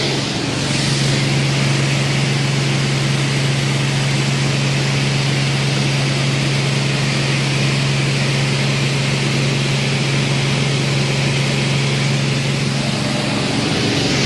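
Skydiving jump plane's propeller engine running steadily during the climb to altitude: a constant low hum under a broad rushing noise.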